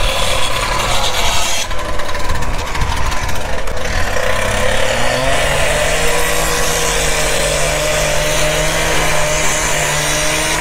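Excavator's diesel engine running; about five seconds in it revs up and holds a steady, higher note.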